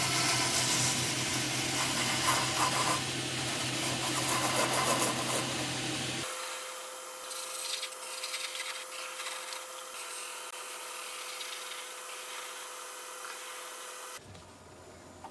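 A wood lathe spinning a turnip while a bowl gouge cuts and scrapes the inside, a steady hissing cut over the low hum of the motor. About six seconds in the sound abruptly drops and thins out, with the hum gone, and it continues more quietly.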